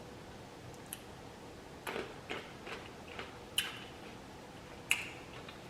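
Quiet eating sounds between sentences: a handful of soft, irregular mouth clicks and smacks while chewing.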